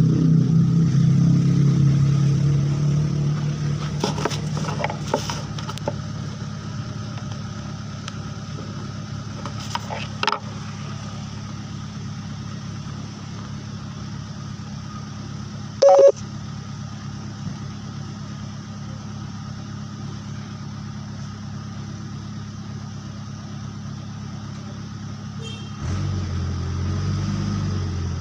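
The engine of a crane loading teak logs runs steadily. It is strongest at first, eases back after a few seconds, and picks up again near the end. About halfway through there is a single short, sharp sound.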